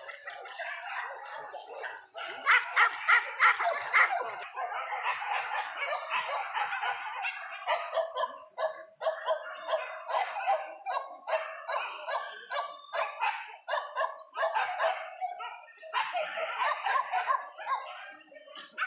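A pack of hunting dogs barking and yelping excitedly: a run of about five loud barks a couple of seconds in, then continuous overlapping yapping and baying.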